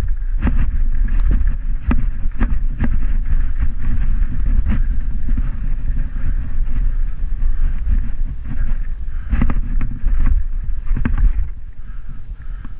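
Mountain bike descending a rough, rocky dirt trail: wind rushes over the microphone with a low rumble, broken by frequent sharp rattles and knocks from the bike over the bumpy ground. The rush eases a little near the end.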